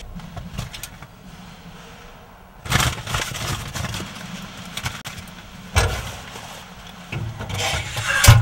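A crumpled paper bag rustling and crinkling as it is handled, in bursts about three seconds in, near six seconds, and again near the end, over a low steady rumble.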